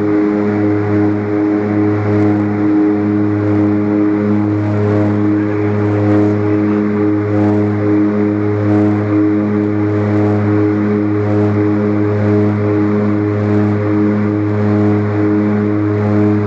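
Seaplane's propeller engines at take-off power, heard from inside the cabin, as the plane climbs away from the water. A loud, steady drone with a regular throb pulsing about two to three times a second.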